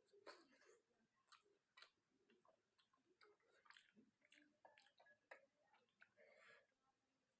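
Faint, close-up chewing of chicken and rice: irregular wet mouth clicks and smacks several times a second.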